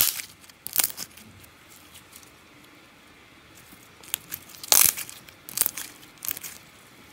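Small lump of homemade slime squeezed and pinched between fingers, giving scattered sharp crackling pops and clicks, the strongest right at the start and about five seconds in.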